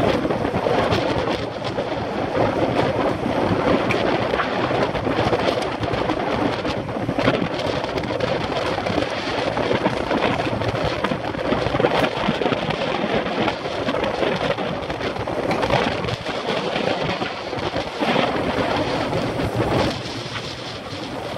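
Loud, steady wind noise buffeting a bike-mounted camera microphone at road-cycling speed, with constant crackle; it eases slightly near the end.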